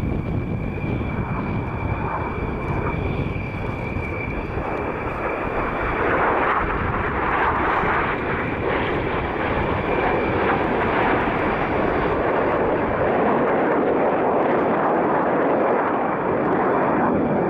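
Red Arrows BAE Hawk T1 jets passing overhead in formation, their Adour turbofan engines making a steady rushing jet roar that swells about six seconds in and stays loud.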